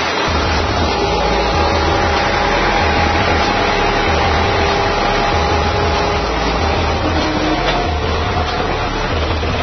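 Massey Ferguson tractor engine running steadily under load as it pulls a plough through the ground: a loud, low pulsing drone.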